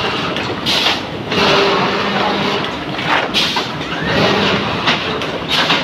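Automatic flatbed screen-printing machine running: a steady mechanical din, with a louder rushing burst about every two and a half seconds as the machine cycles its screens.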